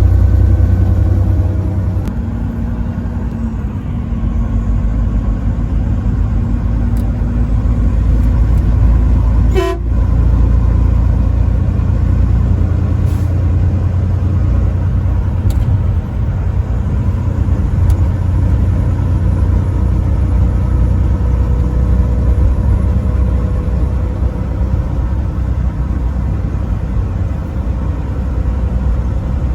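Heavy truck driving on the highway: a steady, loud low rumble of engine and road noise, with one short knock about ten seconds in.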